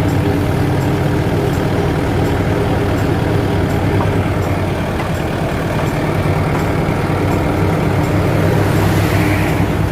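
Heavy farm-machine diesel engine running steadily and loudly at working speed.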